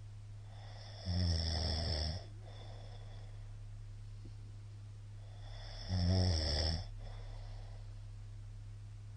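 A man snoring in his sleep: two loud snores about five seconds apart, each lasting about a second, over a steady low hum.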